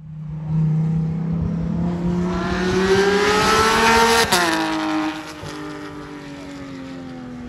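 A supercar engine under hard acceleration, its pitch climbing steadily. About four seconds in, an upshift snaps the pitch sharply down, and the engine then eases off with its note slowly falling.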